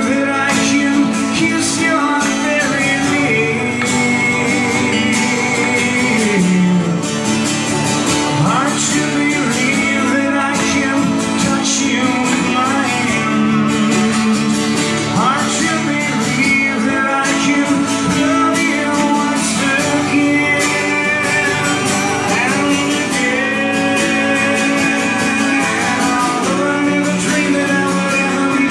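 A live folk-rock band playing a song: strummed acoustic guitars and a mandolin-type instrument over a snare drum, with voices singing.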